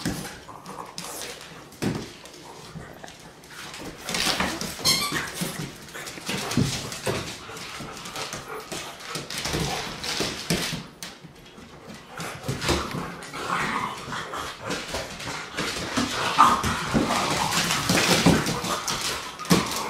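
An Irish Setter and a French bulldog at rough play: dog whines and play noises, with paws scrabbling on a hardwood floor. The noise gets louder near the end.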